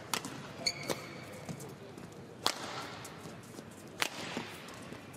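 Badminton rackets hitting a shuttlecock in a fast doubles rally, four sharp cracks: two close together early, then one about two and a half seconds in and one about four seconds in. Court shoes squeak briefly on the floor near the first second.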